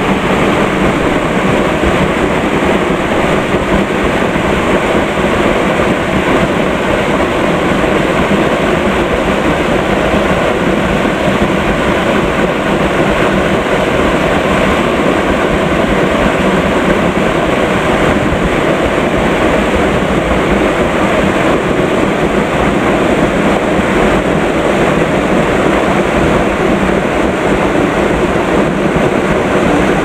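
Waterfall rushing: a loud, steady roar of falling water.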